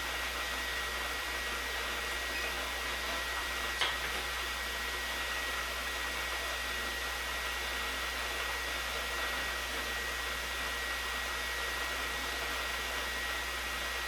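Milling machine running steadily, with a constant high whine over a whirring hum. One small click about four seconds in.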